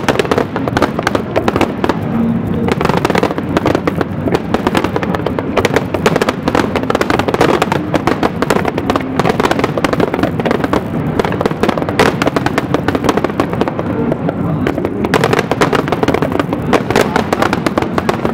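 Fireworks going off in a dense, continuous barrage of crackling bangs with no pause.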